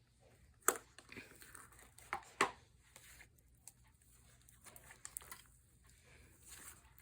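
Slime being squished and poked by hand, giving sticky clicks and crackles with three sharp pops, the loudest under a second in and two more around two seconds in.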